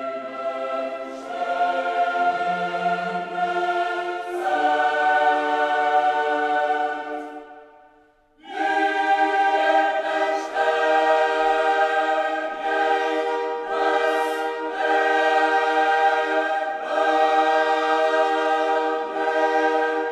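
Gospel choir singing long held chords in harmony. The first chord fades away about eight seconds in, and after a brief dip a new sustained chord swells in and holds.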